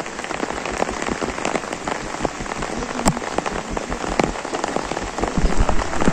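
Steady rain falling, with many individual drops ticking sharply close by. A few low thuds come near the end.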